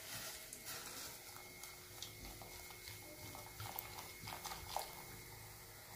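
Cola being poured in a thin stream into a steel bowl, faintly fizzing as it foams, with scattered small pops and crackles of bursting bubbles.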